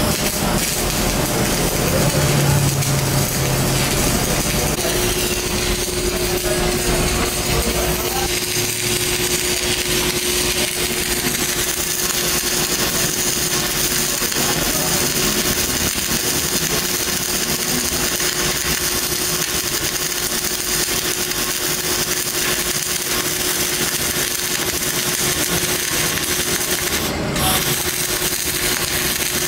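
Steady welding-shop noise: a continuous crackling hiss of the kind arc welding makes, with a machine hum underneath. A steady tone holds from about five seconds in until about twelve seconds.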